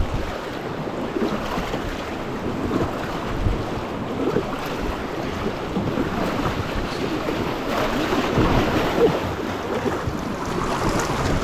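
River water rushing and splashing around an inflatable raft as the crew paddles forward, with wind buffeting the microphone.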